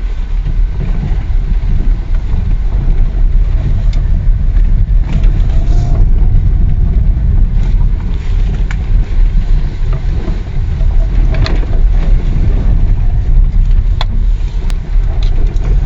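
Cabin sound of a Lada Vesta crawling over a rough, potholed road: a steady low rumble of tyres and suspension, with a few sharp knocks spread through it. The knocks come from the steering rack and electric power steering; the rack was found almost dry of grease.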